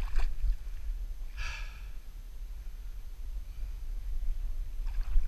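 A person's single heavy exhale about a second and a half in, over a steady low rumble.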